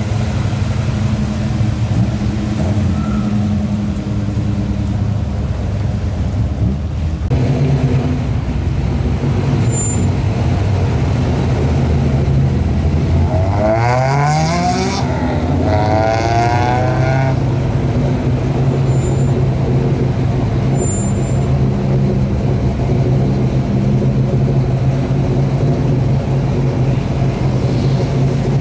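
Classic car engines running at low speed: first a Pontiac Grand Prix, then a customized 1950s Ford F-series pickup. The pickup's engine revs up twice in a row about halfway through, then settles back to a steady running note.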